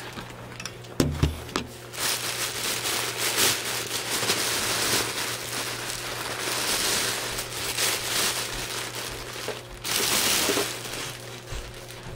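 Packaging being rustled and crinkled by hand in long spells, over a steady low hum, with a short bump about a second in.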